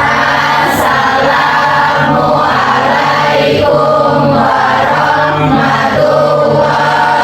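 A class of students reciting a closing prayer aloud together in unison, a steady chant-like group voice.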